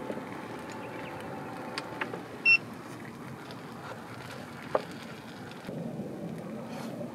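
Cheese and kimchi hot sandwich sizzling on the hot plate of an open electric hot sandwich maker, with a few light clicks of chopsticks against the plate. A short high beep about two and a half seconds in is the loudest sound.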